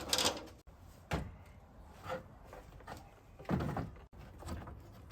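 A series of clunks and knocks, about five in all, as a radiator is handled and set into a truck's engine bay. The loudest come right at the start and about three and a half seconds in.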